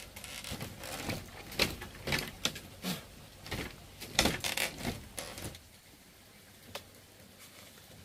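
Dishes and utensils being handled: a quick run of knocks and scrapes for about five seconds, then only a faint click or two.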